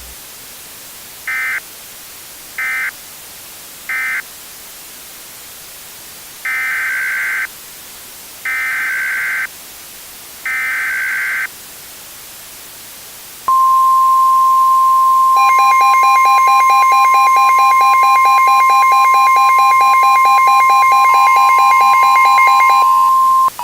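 Emergency Alert System SAME data bursts: three short bursts, the end-of-message code, then three roughly one-second bursts of warbling digital tones carrying the new warning's header. After a pause, a long steady 1050 Hz NOAA Weather Radio warning alarm tone begins, joined about two seconds later by a second, buzzier pulsing alert tone.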